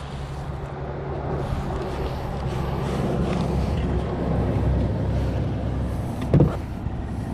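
Steady low hum that slowly grows louder, with a single thump about six seconds in.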